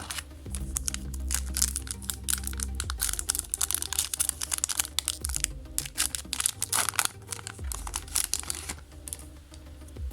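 Crinkling and crackling of a foil trading-card booster pack wrapper being torn open and handled, many irregular sharp crackles in quick succession.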